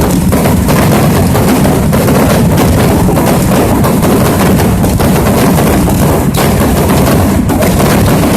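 Fireworks going off in a loud, continuous barrage of rapid bangs and crackling.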